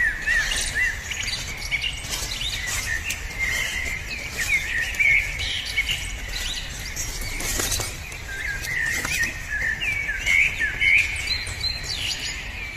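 Birds chirping outdoors: a steady run of short, high chirps and twitters all the way through, over a low rumble like wind on the microphone.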